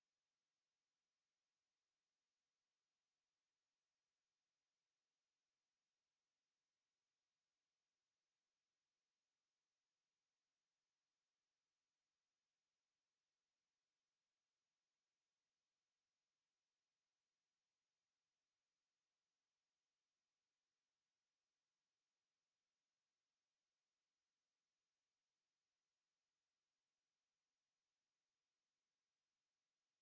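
A single pure sine-wave test tone at 10,262 Hz, a steady high-pitched whine held at one pitch and level without a break.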